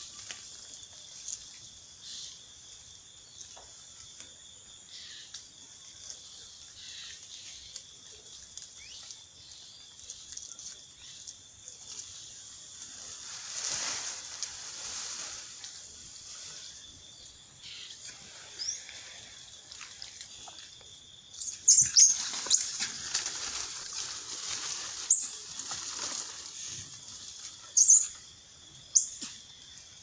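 Forest ambience at dusk: a steady high insect drone throughout, with rustling in the trees. In the last third comes a run of loud, sharp bird chirps and calls.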